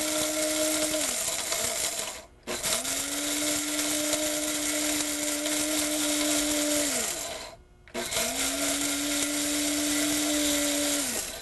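Small electric blade spice grinder running on toasted whole spices, peppercorns and cardamom seeds among them, with a steady high motor whine. It runs in three pulses: twice the motor spins down with a falling pitch and stops briefly, about two seconds in and again about seven and a half seconds in, then starts again, and it spins down once more at the end.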